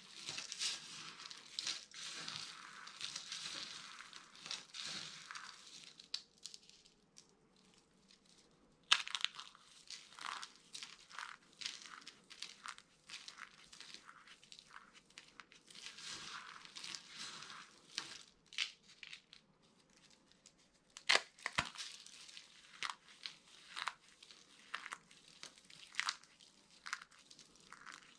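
Dry soap being crushed, with dense crunching and crackling for the first several seconds. After a short pause comes a run of separate sharp crunches and snaps, the loudest about three-quarters of the way through.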